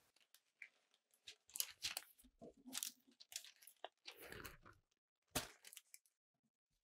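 Baking paper crinkling and rustling as hands lift it and lay it over a baked sponge sheet, in an irregular string of short crackles.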